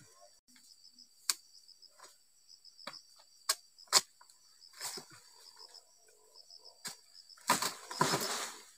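Sharp knocks of a long-poled dodos chisel striking the base of an oil palm frond, about seven irregularly spaced blows, then a longer rustling noise near the end. Steady insect chirring runs underneath.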